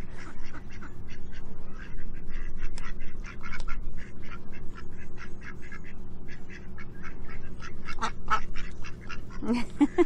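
Domestic ducks feeding, their bills making a quick run of clicks and snaps as they peck at food on the ground, with a few quacks about eight seconds in and again near the end.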